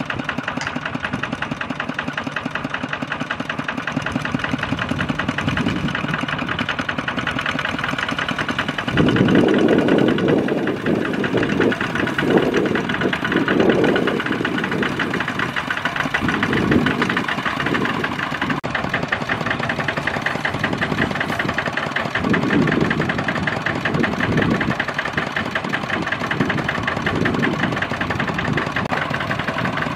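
Single-cylinder diesel engines of two-wheel walking tractors chugging steadily as they haul trailers loaded with rice sacks, with several louder surges, the first about nine seconds in.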